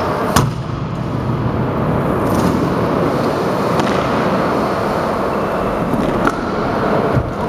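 A stunt scooter lands on a ramp with one sharp clack about half a second in. Then comes a steady rolling rumble of its hard wheels on the ramp surface, with a couple of faint knocks near the end.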